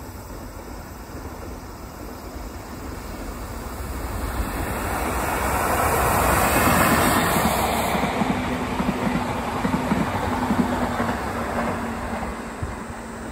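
An electric locomotive hauling a delivery train of new E131-series cars passes by. The sound swells to its loudest about halfway through, then gives way to the rhythmic clickety-clack of the cars' wheels over rail joints, fading near the end.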